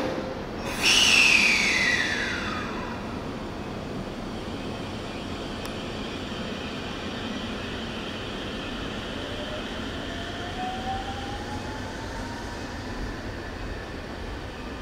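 JR 313-series electric train at a station: a loud burst about a second in with a falling whine, then a steady hum. From about nine seconds a slowly rising inverter-motor whine comes in as the train accelerates.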